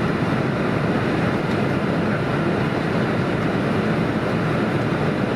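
Jet airliner on approach, its engines making a steady, continuous noise.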